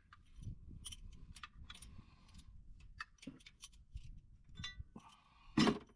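Scattered light metallic clicks and clinks of hand tools and valvetrain parts being handled as the engine's top end is taken apart, with a short run of quick ticks late on and a louder clack just before the end.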